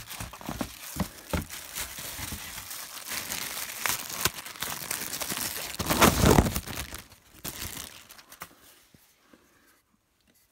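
Packaging crinkling and rustling as a small scoop shovel is dug out of a cardboard shipping box, loudest about six seconds in, then dying away to a few faint handling clicks.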